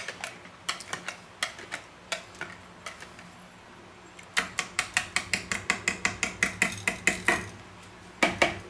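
Wire balloon whisk stirring a thick cream-cheese mixture in a plastic mixing bowl, its wires clicking against the bowl: a few scattered clicks, then a fast even run of about six clicks a second for some three seconds, and two louder knocks near the end.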